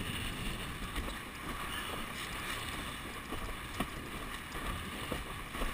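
Windsurf board planing over choppy water: a steady rush of water and spray along the hull with wind on the microphone, and a few brief knocks from the chop. The board is dragging with two strands of seaweed caught on its fin.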